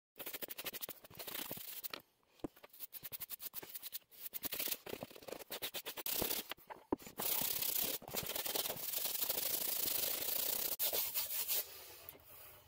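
Leather work boot being scrubbed with boot cleaner: quick back-and-forth rubbing strokes, a short pause about two seconds in, then longer, steadier scrubbing that fades near the end.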